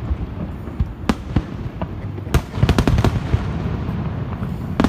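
Fireworks going off across the bay: sharp bangs at irregular intervals, with a quick run of several bangs about halfway through, over a steady low rumble.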